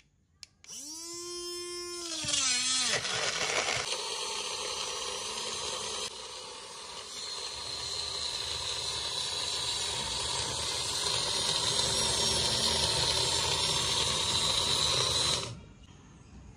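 A portable USB-rechargeable blender's small electric motor is started with a click of its power button. Its blades spin up with a rising whine, then settle into a dense, steady churning as they chop and blend the chunks of produce in the jar. The motor cuts off suddenly about a second before the end.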